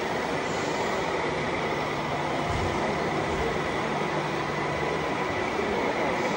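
Scale RC trucks' sound modules running simulated diesel engines at idle, a steady rumble with a faint constant whine above it.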